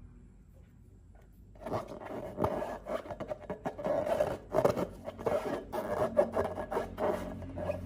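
Slime being worked by hand: rubbing, scraping and crackling sounds that start about a second and a half in.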